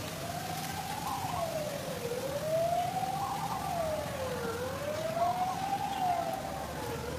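A siren wailing, its pitch sweeping smoothly up and down about every two and a half seconds, three times over.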